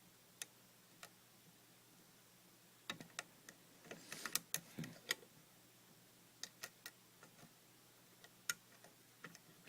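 Faint, scattered small metallic clicks of a hook pick and tension wrench working the pins of a TSS 5-pin lock as the pins set. There is a cluster of clicks about 3 to 5 seconds in and a few single clicks later.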